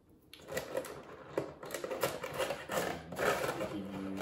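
Clear plastic blister packaging crinkling and clicking as small toy accessories are worked out of it: a quick run of irregular clicks and crackles that starts about half a second in.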